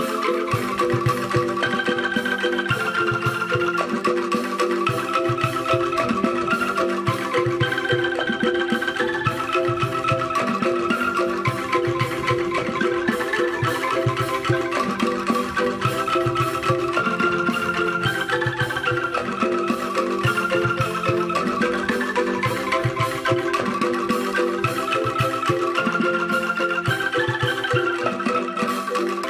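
Background music: a melody moving in steps over a fast, steady beat.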